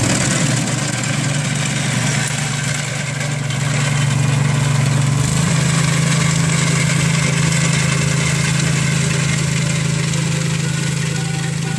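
Rapid Spezial single-axle walk-behind tractor mowing hay with its front sickle-bar mower: the engine runs steadily under load, and its note steps up slightly about five seconds in.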